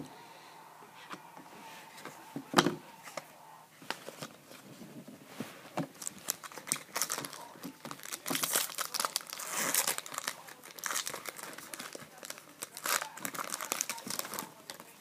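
Trading card pack wrapper being torn open and crinkled in the hands, the crinkling heaviest in the second half. There is a sharp knock about two and a half seconds in.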